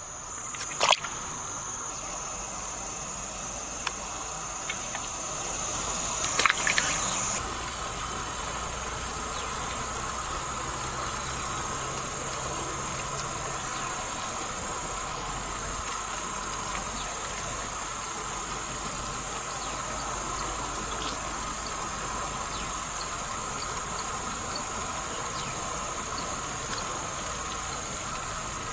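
Steady high-pitched chirring of insects, going on without a break, with a few sharp clicks about a second in and again around six to seven seconds in.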